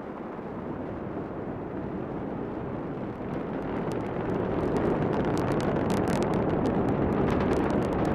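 Falcon 9 first stage with its nine Merlin engines at full thrust during ascent: a deep, continuous rocket roar that grows louder about four seconds in, with a ragged crackle setting in on top.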